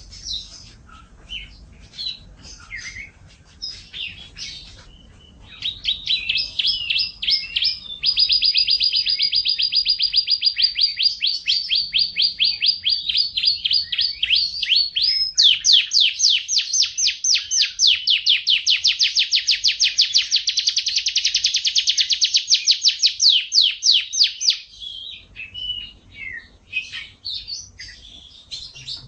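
Domestic canary singing: scattered short chirps, then from about six seconds in two long rolls of rapidly repeated notes, the second faster, higher and louder, breaking back into short chirps near the end.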